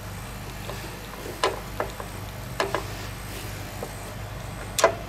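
Hand ratchet turning the mounting bolts of a plastic fuel pump on a Kohler engine, giving a handful of separate sharp clicks spread over a few seconds.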